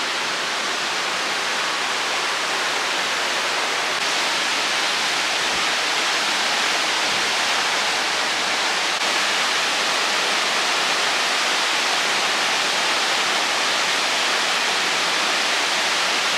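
Fast river water rushing through rapids between boulders: a steady, unbroken rush that rises slightly about four and nine seconds in.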